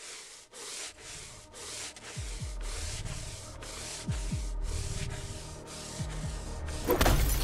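Film soundtrack: even pulses of hiss about two a second, with two pairs of deep falling thumps, and a loud hit near the end.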